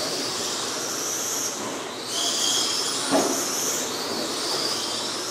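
Electric RC dirt oval cars racing on a dirt track, their motors and gears giving a high whine that swells and fades as each car passes, over a hiss of tyres on dirt. There is a sharp knock about three seconds in.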